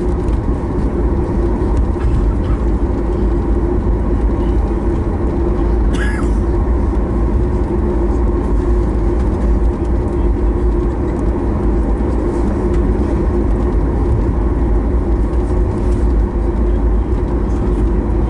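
Cabin noise of a Boeing 737 MAX 8 taxiing: the steady hum of its CFM LEAP-1B engines at taxi power over a low rumble from the wheels rolling on the taxiway. There is a single short click about six seconds in.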